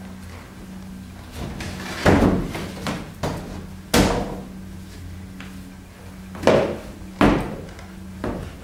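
Wooden picture frames knocking and scraping against each other and the storage rack as framed paintings are pulled out and set down: a string of separate knocks, the sharpest about four seconds in.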